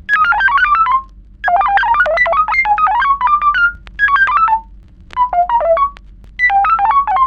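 Retro sci-fi computer sound effect: rapid electronic bleeps jumping between random pitches, about ten a second, in five runs of half a second to two seconds with short pauses between, over a low steady hum.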